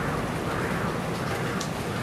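Steady rain, an even hiss, with a faint soft pulse repeating about every half second.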